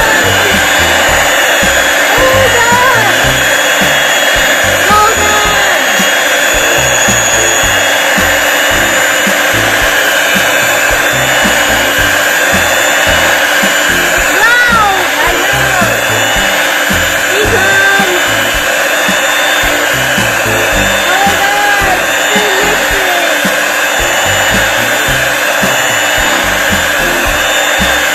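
Electric hand mixer running steadily, its beaters whisking a thin, runny semolina-and-flour pancake batter in a bowl.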